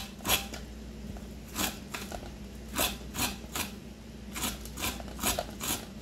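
An ear of sweet corn stroked back and forth along a Norpro stainless steel cream-style corn cutter. Its sharp blade and scraper cut and scrape the kernels off in short rasping strokes, about a dozen of them at an uneven pace.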